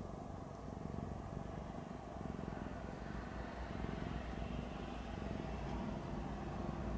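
Domestic tabby cat purring steadily as a low, fluttering rumble while it lies relaxed, close to the microphone.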